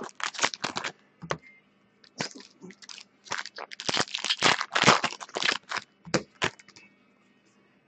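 Foil trading-card pack wrappers crinkling and tearing as packs are ripped open by hand. Quick irregular crackles, with a short pause about a second and a half in, stopping near the end.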